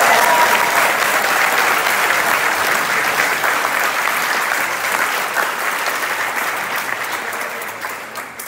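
Audience applause: many people clapping together in a steady dense patter that tapers off near the end.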